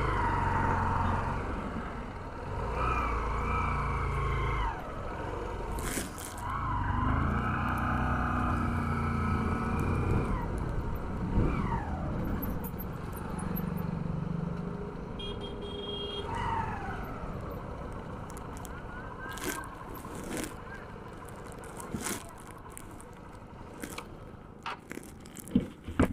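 Motorcycle engine pulling away and running up through its gears, its pitch rising and settling, with wind rushing over the camera mic. It then eases off, dropping in pitch twice as the bike slows, and a few sharp knocks come near the end.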